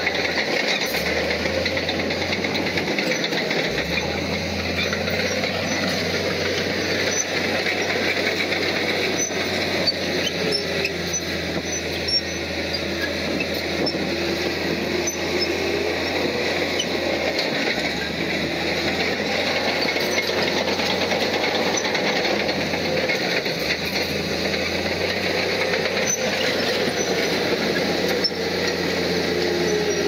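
Heavy earthmoving machinery with a diesel engine running steadily, with a constant low hum and many small scattered clicks.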